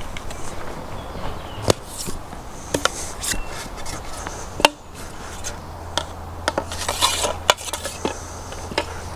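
Scattered light clicks, knocks and clatter of fishing gear being handled, with a brief rustle about seven seconds in.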